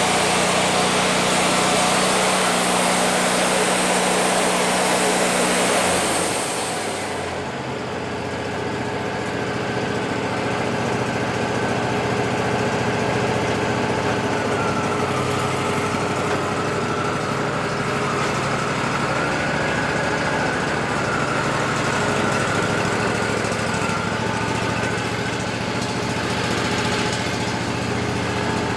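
Wood-Mizer LT40 band sawmill cutting a cedar log: the band blade runs loud and hissing through the wood for about the first seven seconds, then the cut ends and the sawmill's engine carries on running steadily, with a wavering whine above its hum.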